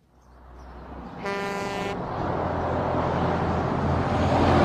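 A large vehicle approaching and growing steadily louder, its engine rumbling, with a single horn blast lasting under a second about a second in.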